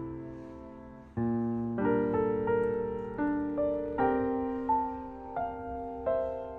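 Background piano music: slow notes and chords struck one after another, each left to ring and fade.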